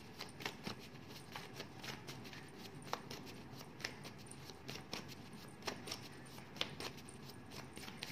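Word cards being handled on a table: faint, irregular clicks and rustles as the cards are drawn and laid out.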